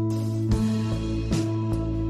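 Background music: a gentle instrumental tune with plucked notes.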